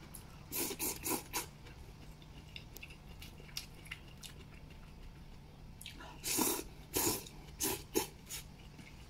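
A man slurping and chewing noodles: a few short slurps within the first second and a half, then a louder run of slurps about six to eight seconds in, with quiet chewing between.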